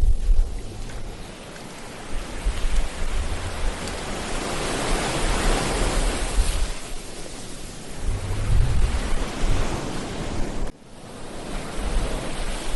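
Ocean surf on a beach: a wave swells to a peak about halfway through and washes out, with low gusts of wind buffeting the microphone. The sound drops out abruptly for a moment near the end before the surf and wind return.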